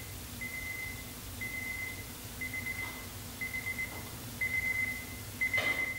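Digital alarm clock beeping: one high beep about once a second, each lasting about half a second, with a short rustle near the end.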